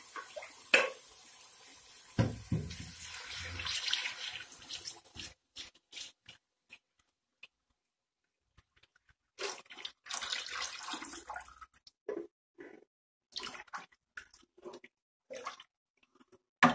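Buttermilk mixed with gram flour being poured into a metal pot of fried spice paste, the liquid splashing, in two spells with a quiet gap between. Near the end a wooden spoon stirs the mixture with short scrapes and knocks.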